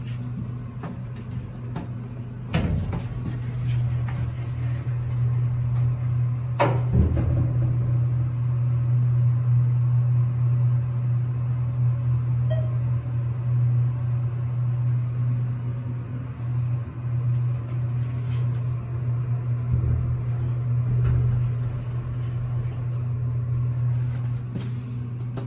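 Elevator running with a steady low hum, and two sharp clunks in the first seven seconds.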